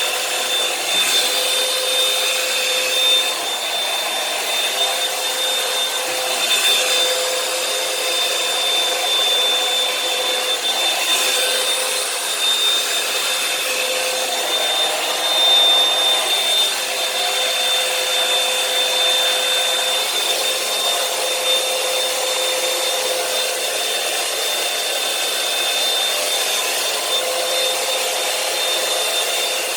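Revlon One-Step hot-air brush hair dryer running steadily: a constant rush of air with a steady high motor whine.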